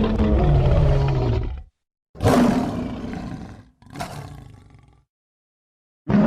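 Three creature roar sound effects for a hulking reptilian monster character. The first is loud and lasts under two seconds. After a short silence come two shorter roars that each fade away.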